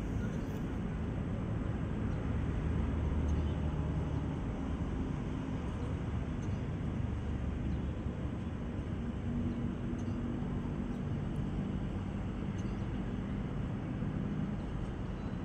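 Diesel engine of a Caterpillar 320 hydraulic excavator running steadily, heard from inside the cab. The low engine note shifts a little in level and pitch as the joystick controls are worked.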